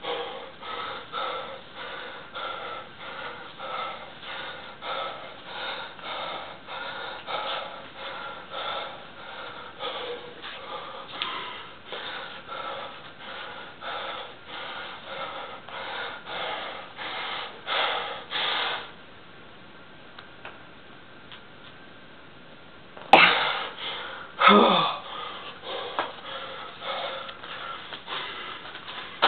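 A man panting hard, about two forced breaths a second, as he strains to bend a horseshoe by hand. About two-thirds of the way through, the breathing stops for a few seconds, then two loud gasps break out and the panting starts again.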